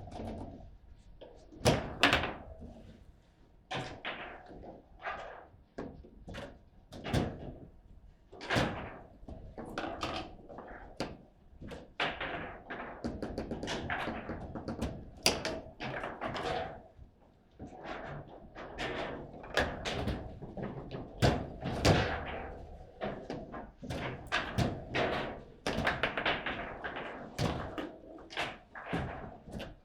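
Table football game in play: the ball being struck by the rod-mounted players and rods knocking against the table, giving a rapid, irregular run of sharp knocks and thunks.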